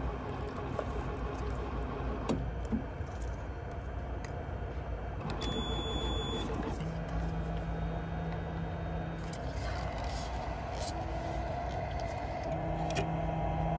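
Coffee dispensing machine running as it pours coffee into a paper cup: a steady mechanical hum with a click about two seconds in, and a low steady tone joining at about seven seconds.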